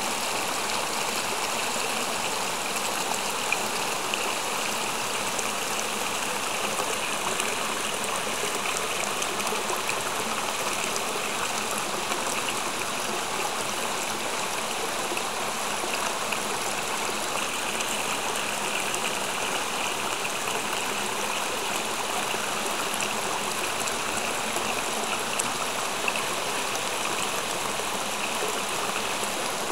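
Steady rush of running water, like a small stream or inflow pouring into a concrete pond, unchanging throughout.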